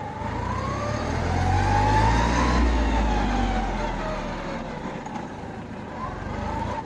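Kubota A211N compact tractor's three-cylinder diesel engine accelerating: it revs up, peaks about two and a half seconds in, then eases off, its whine rising and then falling in pitch.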